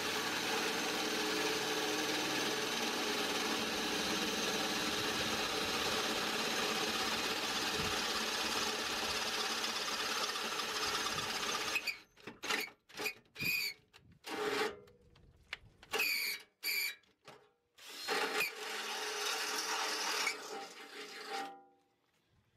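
Ryobi electric drill with a 3/8-inch bit enlarging pilot holes in sheet steel for riv nuts. It runs steadily for about twelve seconds, then in short stop-start bursts, some with a high squeal, then one last steady run that stops shortly before the end.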